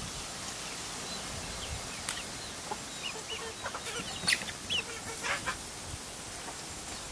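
Chickens clucking: a scatter of short calls, the loudest about four seconds in.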